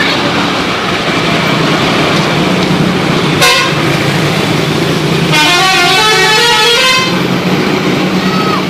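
Bus 'telolet' multi-tone musical air horn playing a quick run of stepping notes for about a second and a half, over a steady engine rumble. A brief, sharp, loud blast comes a couple of seconds before the tune.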